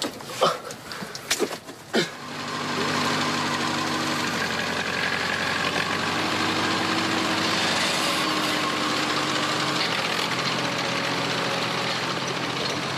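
A few sharp knocks and clicks, then about two seconds in a heavy excavator engine comes in and runs steadily, its pitch shifting a little now and then.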